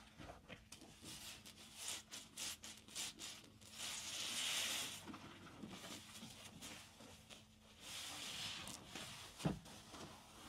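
Soapy car sponge squeezed by hand: wet squelching and crackling of thick creamy suds, a quick run of short squishes, then two longer hissing squeezes, and a dull thump about nine seconds in.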